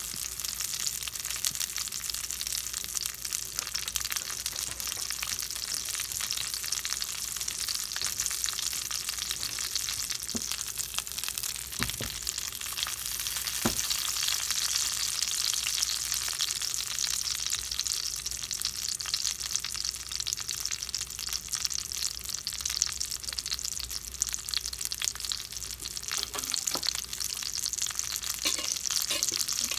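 Potato wedges frying in hot oil in a stainless steel skillet, with more oil just poured in: a steady crackling sizzle. A couple of light knocks come about twelve and fourteen seconds in.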